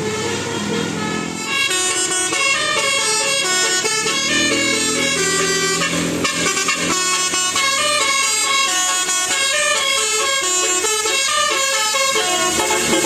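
Bus telolet horn, a set of musical air-horn trumpets, playing a fast melody of rapidly changing notes, with sustained lower tones in the first second or so.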